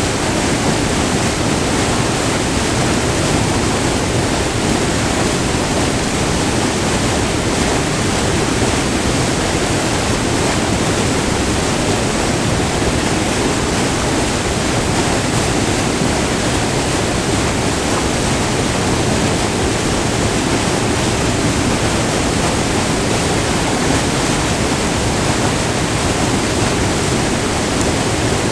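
Waterfall on a small river, white water rushing steadily over a short multi-tiered drop, heard up close.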